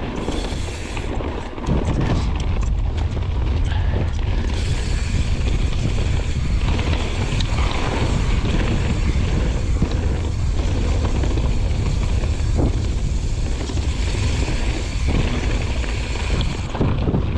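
Wind rushing over the microphone of a mountain bike riding down a trail, with tyre noise and scattered clicks and rattles from the bike. It gets louder about two seconds in.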